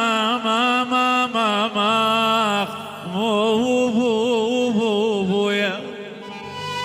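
Iraqi mawwal music: one long, ornamented melodic line with heavy vibrato, its held notes wavering up and down in pitch and broken into several short phrases.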